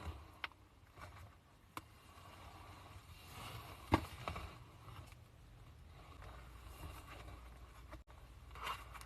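Slime being handled by hand: quiet sticky scraping and squishing, with a few sharp clicks or pops, the loudest about four seconds in.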